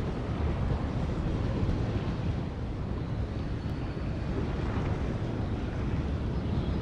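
Wind buffeting the camera microphone: a steady low rumble with a fainter hiss above it.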